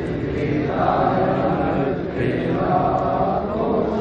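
A large crowd of men chanting together in unison in long, drawn-out phrases, with a short break between phrases about halfway through.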